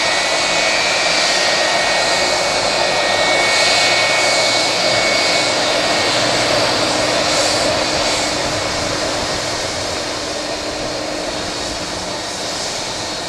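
Jet engines of a Boeing 757-200 running as the airliner moves along the runway: a steady rush with a high whine, growing slowly fainter over the last few seconds.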